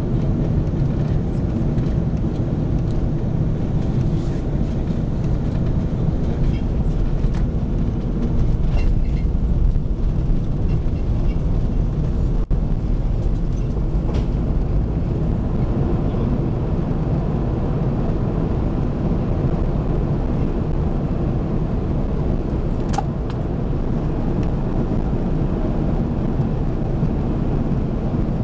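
Steady low rumble inside the cabin of an Airbus A340-600 airliner, from its four Rolls-Royce Trent 500 engines and the airflow, growing a little louder about eight seconds in. A faint click comes near the end.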